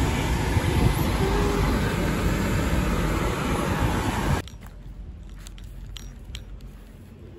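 Steady loud rushing noise inside a car's cabin that cuts off abruptly about four seconds in, leaving quieter outdoor sound with a few light clicks.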